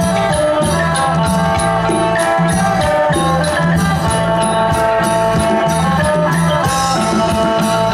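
Isan pong lang folk band playing, with sustained melody notes over a steady percussion beat.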